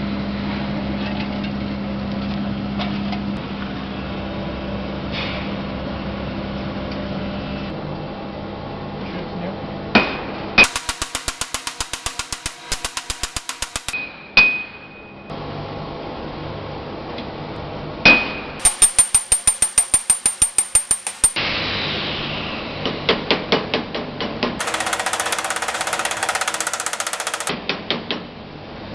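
Rapid, evenly spaced hammer blows forging a U8 tool-steel rod into a spindle gouge blank. They come in three runs of about three seconds each, several blows a second, with brief metallic rings between runs. A steady hum fills the first third.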